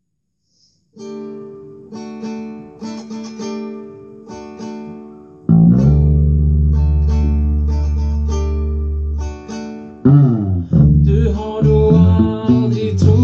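Acoustic guitar strummed, starting about a second in, joined about five seconds in by a loud, low sustained electric note; near the end a voice starts singing along.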